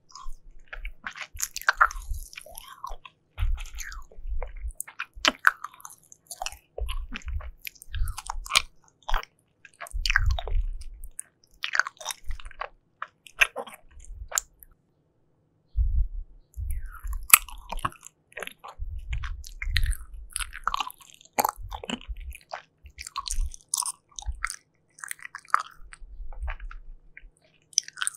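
Close-miked chewing and biting of soft jelly, in irregular bursts with a brief pause about halfway through.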